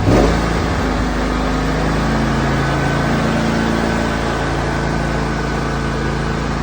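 John Deere riding mower's engine running, now started. Its pitch drops quickly just after the start, then it runs steadily.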